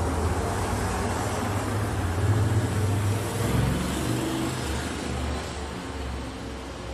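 Motor vehicle road noise: a low rumble with a hiss over it, swelling about two seconds in and then easing off a little.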